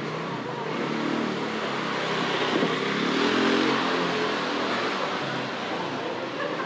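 A motor vehicle engine rising in pitch and easing off again, loudest a few seconds in, over a steady background of street noise.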